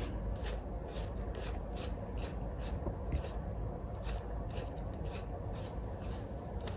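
Quiet, evenly spaced clicks and scrapes, about three a second, from a hand-turned driver tightening the ring of a band-type oil filter wrench around an oil filter.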